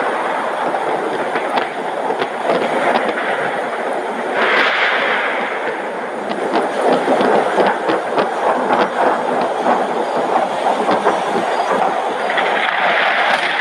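Heavy rain pouring down during a thunderstorm, a steady rush dotted with many small ticks of drops striking.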